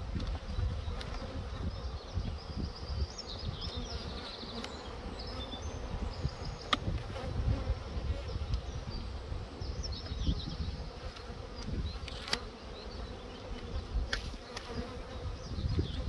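Honeybee colony humming over an opened hive: a steady, dense drone of many bees on and around the exposed frames, with a few sharp clicks.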